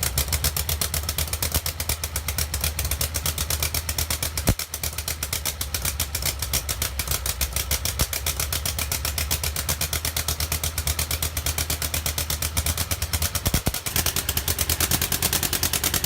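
Quarter-scale model of a British WWI fighter-plane engine running steadily, with a rapid, even stream of firing pulses.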